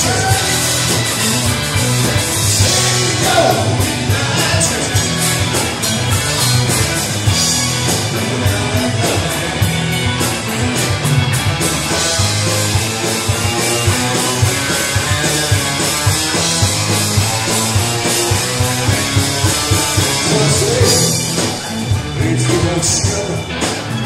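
Live blues-rock band playing: electric guitars over drums with a steady beat, with bass and keyboard.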